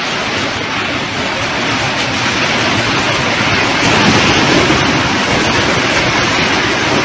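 Loud, steady rushing of strong wind buffeting the microphone, swelling about four seconds in.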